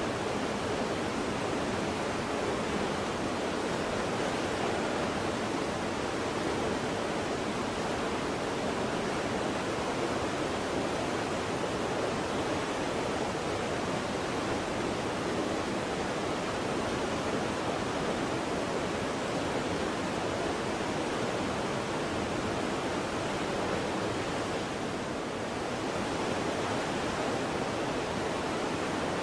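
Waterfall: a steady, even rush of falling water, with a slight dip in level about 25 seconds in.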